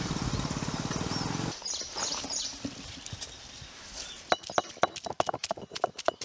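Stone roller of an ammi grinding stone knocking and crushing whole ginger and garlic cloves on the stone slab, a quick run of sharp knocks about four a second that starts about four seconds in. Before it, a steady mechanical rumble cuts off abruptly about a second and a half in, followed by a few high chirps.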